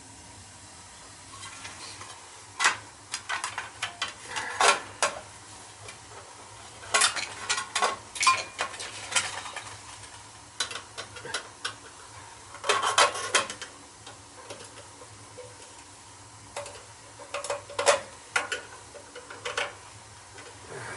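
Clinks, taps and rattles of hand tools and small metal parts being handled, coming in scattered bursts over a faint steady low hum.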